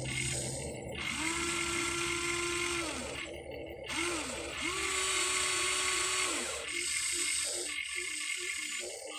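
Electric gear motors of a Huina 1593 RC excavator whining through their gearboxes in two runs of about two seconds each, each one rising in pitch as it spins up and falling as it stops, with a brief blip between them. A softer gear rattle follows near the end.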